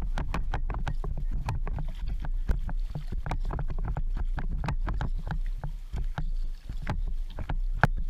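A QK Tasman Express sea kayak under way, with water splashing and slapping around the hull in many quick, irregular strikes over a steady low rumble of wind on the microphone.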